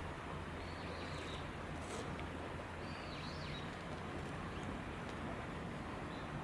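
A few faint, short, high bird chirps over a steady low rumble of outdoor background noise.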